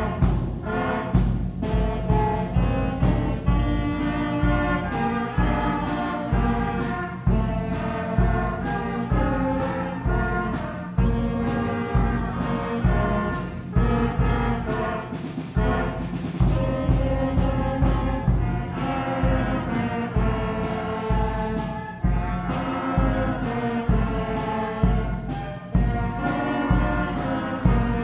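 Grade 8 school concert band playing a piece: French horns, trumpets, flutes and clarinets holding and moving through notes together over a steady, regular beat of drum strikes.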